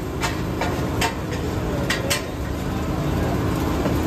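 Busy market ambience: a steady low hubbub of the crowd and stalls, with scattered sharp clinks and knocks from things being handled on hard surfaces.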